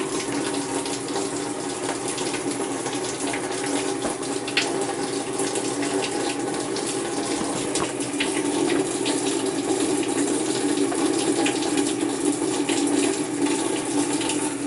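Water running into a top-load washer's tub through its water inlet valve during a test fill: a steady rush of water with a steady hum under it, getting a little louder about halfway through.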